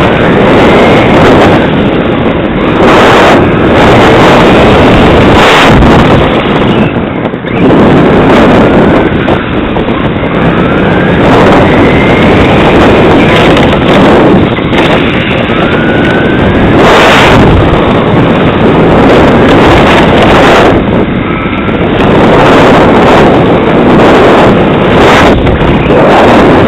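Onboard sound of a Tamiya TT-01 electric RC touring car driving fast on asphalt: a loud, steady rush of wind buffeting and tyre and drivetrain noise on the car-mounted camera's microphone, with a faint motor whine rising and falling as the throttle changes.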